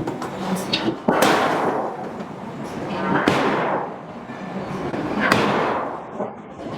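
Hydraulic forging hammer striking a steel billet: three heavy blows about two seconds apart, each one dying away slowly.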